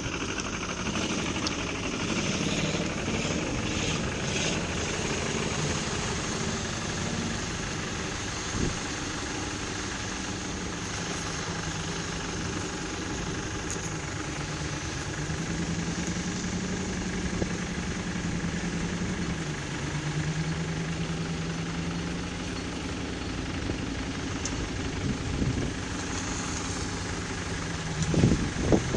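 Off-road 4x4's engine running steadily, its pitch shifting up and down a few times as the throttle changes. There is a knock about nine seconds in and a few more thumps near the end.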